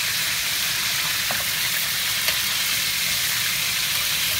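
Flour-coated lobster pieces deep-frying in oil in a stainless steel wok: a steady sizzle, with a single light click about two seconds in.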